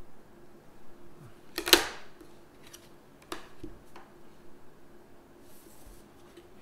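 Clear plastic plotting rulers handled on a paper nautical chart: one sharp clack a little under two seconds in, then a few lighter taps and knocks as the set square and straight ruler are moved and laid down.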